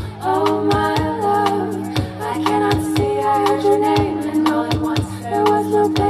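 A live pop band plays: several women sing sustained notes in harmony over electric guitar, bass and a steady drum beat.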